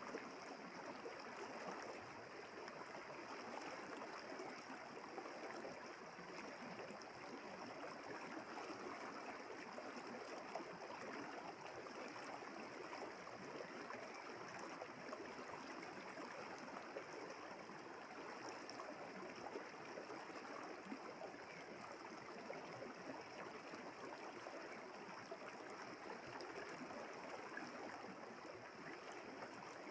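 River water flowing in a steady, even rush, with a faint steady high-pitched hum above it.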